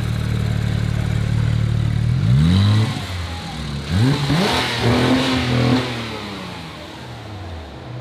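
Porsche 911 GT3's naturally aspirated flat-six idling steadily, then blipped several times from about two seconds in, each rev rising and falling quickly. It drops back to a quieter idle near the end.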